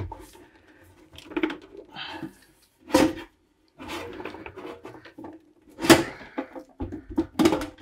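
Metal top cover of a cassette deck being pried and worked loose by hand, giving a few sharp clunks and knocks, the loudest about three and six seconds in, with softer scraping and rattling between them.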